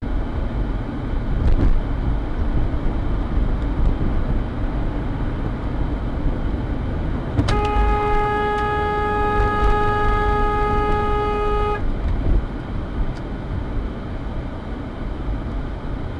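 Steady low rumble of a car driving, heard from inside the cabin. About seven and a half seconds in, a car horn sounds one long, steady blast of about four seconds as another car cuts into the lane ahead.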